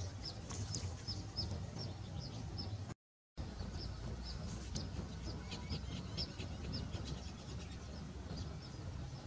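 Small birds chirping over and over, short high chirps two or three a second, over a steady low rumble; the sound cuts out completely for a moment about three seconds in.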